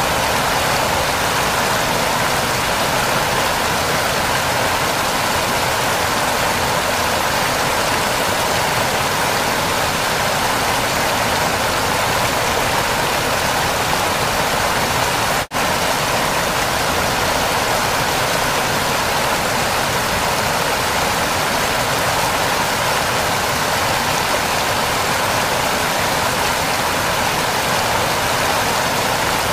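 Waterfall: water falling and rushing steadily, with a split-second dropout about halfway through.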